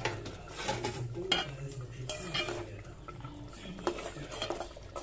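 Steel ladle stirring thick kulambu in an aluminium pot, scraping against the pot and clinking on its rim at uneven intervals, as the grated coconut is stirred in.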